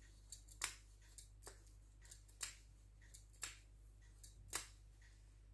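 A vegetable peeler scraping along a bar of milk chocolate, shaving off flakes: a string of short, faint scrapes, irregularly spaced, one or two a second.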